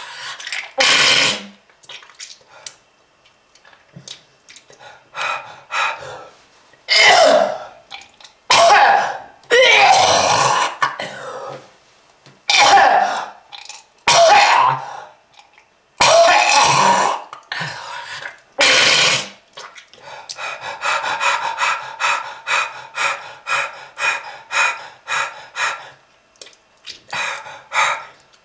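A person's harsh, hacking smoker's cough: loud separate coughs and throat-clearing hacks, then a rapid run of short strained, wheezing breaths at about three a second, and a couple more coughs near the end.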